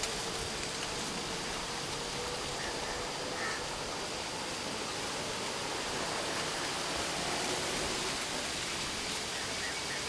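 Steady, even rushing noise of the outdoor air, with no distinct events standing out.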